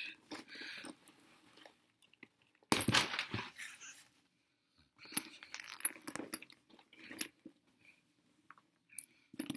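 Paper packaging rustling and crinkling in irregular bursts as a handbag is unwrapped and handled, the loudest crinkle about three seconds in.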